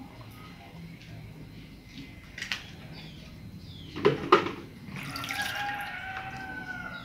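Strawberry juice poured from a plastic pitcher into a pot of thickening atole, with a few light clicks. About four seconds in come two sharp knocks close together, and near the end a long call sounds in the background for about two seconds.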